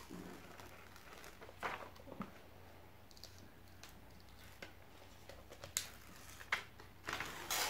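Faint rustling and crinkling of paper as the protective release paper is peeled off the sticky diamond painting canvas, with a few short crackles, the loudest near the end.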